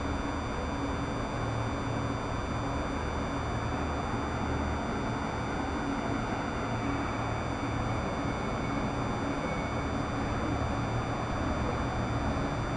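Steady low engine drone of a passing river sightseeing boat, within a constant wash of outdoor city noise.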